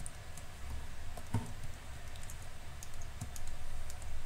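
Light, scattered clicks of a computer keyboard and mouse, a few a second, over a low hum.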